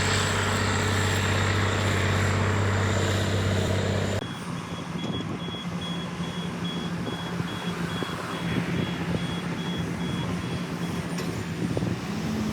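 Diesel engine of heavy construction machinery running steadily. About four seconds in it cuts abruptly to a quieter, lower hum with a faint high steady tone.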